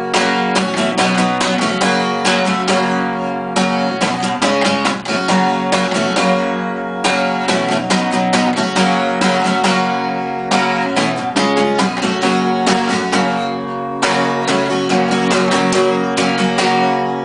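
Acoustic guitar strummed in a steady rhythm, chords ringing on, with no singing: an instrumental passage of a folk-country song.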